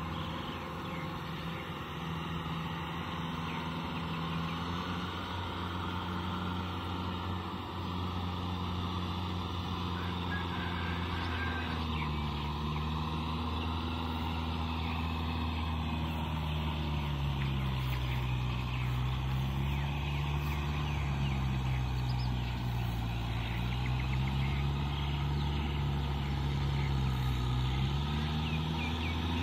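Tractor diesel engine working a rotavator through a flooded rice paddy: a steady low drone whose pitch rises and falls as the load changes, growing gradually louder as the tractor comes closer.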